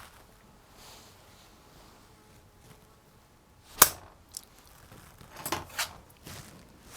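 A sharp click a little under four seconds in, then a lighter click and, about a second later, a quick cluster of small clicks and knocks.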